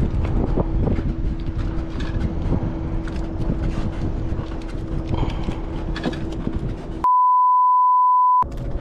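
Wind buffeting the microphone over a steady hum, with scattered small knocks. About seven seconds in, everything cuts out for an edited-in censor bleep: one pure, steady beep lasting just over a second, the loudest sound here.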